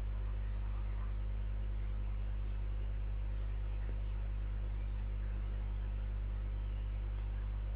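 Steady low mains hum at 50 Hz with a faint hiss, unbroken throughout; no gulping is audible above it.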